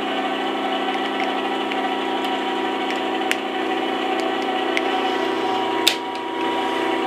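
Geared-head metal lathe running with no cut, a steady hum of several even tones, with a few sharp metallic clicks of tooling being handled; the loudest click comes about six seconds in.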